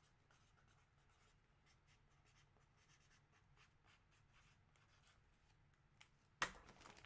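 Faint desk-work noise: light, irregular ticks and scratches like writing or tapping, with one sharper click about six and a half seconds in.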